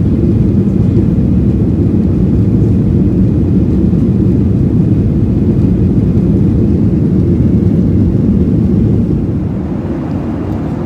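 Steady low rumble of a Skymark Boeing 737-800's jet engines, heard inside the cabin. It eases slightly near the end.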